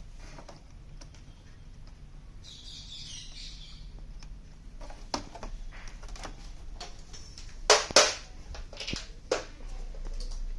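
Scattered sharp clicks and knocks of parts and tools being handled, the two loudest in quick succession about eight seconds in. A brief high chirping sound comes about three seconds in.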